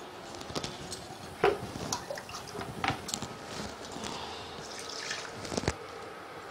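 Thick carrot-and-milk gajar halwa mixture cooking in an aluminium kadai, with irregular bubbling plops and clicks, the sharpest about a second and a half in, over a faint steady hum.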